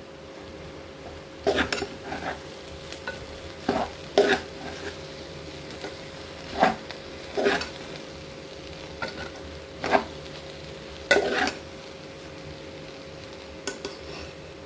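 A spoon stirring rice in a pot, scraping and knocking against the pot's side in irregular strokes, roughly one every second or two. The rice is being sautéed in the pot while it is mixed.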